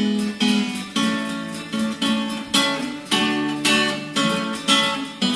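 Instrumental music: strummed acoustic guitar chords, struck about twice a second, each ringing and dying away.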